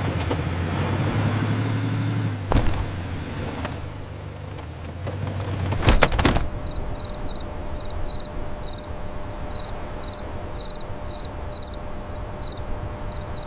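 Vehicle engine running steadily, with a sharp knock about two and a half seconds in. It cuts off with a loud thud around six seconds in. Then only a faint steady hum remains, with short high chirps repeating about twice a second.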